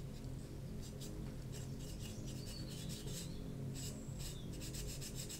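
Cotton bud and cloth rubbing modelling wax over a clear plastic model canopy, a run of quick irregular polishing strokes starting about a second in.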